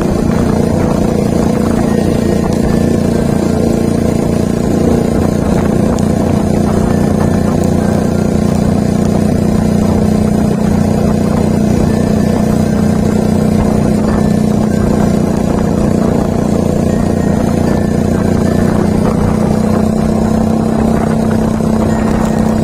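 Yamaha Vixion motorcycle's single-cylinder four-stroke engine running steadily at a constant cruising speed, heard from the rider's seat.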